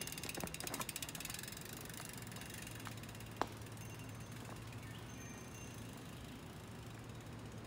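Mountain bike's freewheel hub ticking rapidly as the bike is wheeled along, fading out over the first second and a half. A single sharp click about three and a half seconds in.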